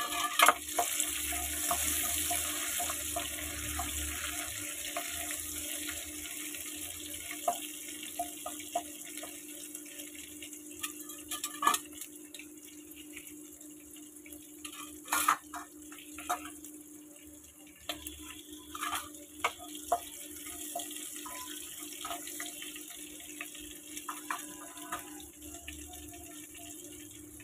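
Hot oil sizzling in a frying pan as nigella seeds, dried red chillies and a bay leaf fry in it, with scattered spits and pops; the sizzle gradually quietens over the first half. A steady low hum runs underneath.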